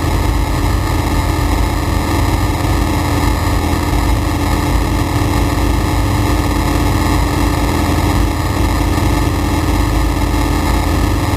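Flight Design CTLS light aircraft's four-cylinder Rotax engine and propeller at takeoff power, a loud steady drone heard from inside the cockpit as the plane lifts off the runway and climbs.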